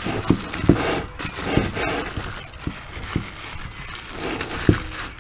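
Plastic wrapping crinkling and rustling as a plastic-bagged metal part is handled, with a few light knocks.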